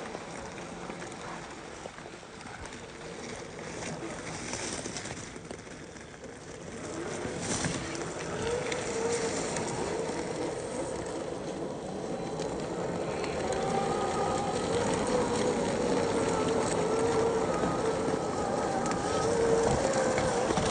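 Electric motor and gear drive of an RC4WD Trail Finder 2 scale truck whining under load. The pitch wavers as the throttle changes, and it gets louder from about a third of the way in.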